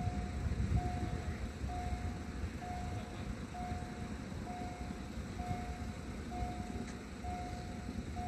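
Automatic level-crossing warning signal beeping: a single steady tone repeated about once a second while the barriers are down and the lights flash, the warning of an approaching train. A low rumble runs underneath.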